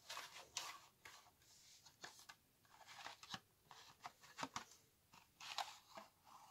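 Faint rustling and scraping of a cardboard box and paper sleeve as a plastic boiler room-temperature controller is slid out by hand, in short irregular bursts with a few light clicks.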